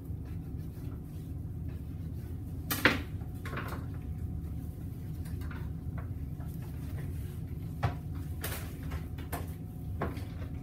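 Boning knife and bone-in ham being worked on a cutting board: scattered knocks and clicks, the loudest about three seconds in, over a steady low hum.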